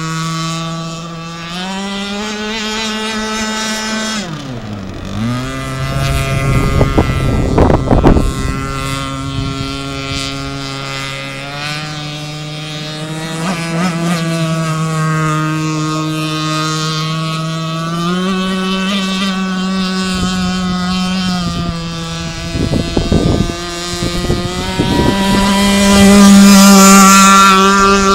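RC blade boat's fuel engine running on the water, a buzzing note whose pitch rises and falls with throttle and distance. It dips sharply about four seconds in and then recovers. There are two short bursts of rushing noise near eight seconds and again after twenty. The note is loudest and highest near the end.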